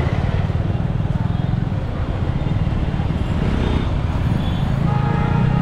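Street traffic: a steady rumble of vehicle engines and road noise, with a brief steady tone near the end.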